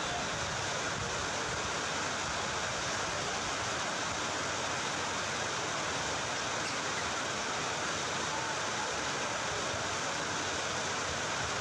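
A steady, even hiss of background noise with no distinct events standing out.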